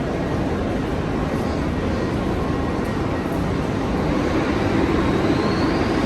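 New York City subway train rumbling through the station, the rumble growing a little louder about four seconds in, with a faint rising whine near the end.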